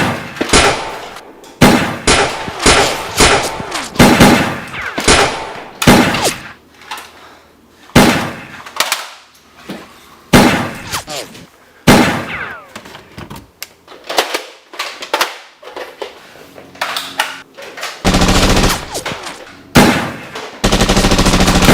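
Gunshot sound effects for a Nerf blaster fight: a string of single shots, each ringing off, then two bursts of rapid automatic fire near the end.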